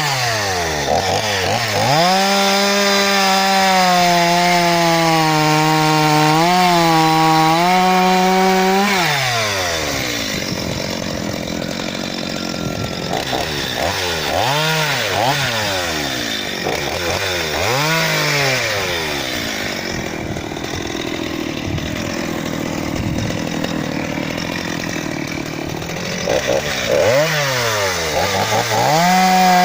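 Stihl MS 230 C chainsaw, a 42.6 cc two-stroke, running at high revs with its throttle dropped and opened again about a second in. It holds high until about nine seconds in, then runs rougher and a little quieter through the middle with a few short revs. It is back up to full revs near the end.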